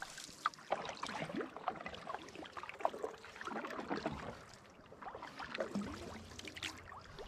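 Canoe being paddled: paddle strokes in the water with scattered small splashes, drips and gurgles around the boat.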